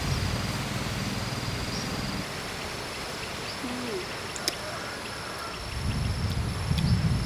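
Insects trilling in a steady high tone that breaks off briefly every second or so, over a low rumble that is heavier in the first two seconds and again near the end. One sharp click about four and a half seconds in.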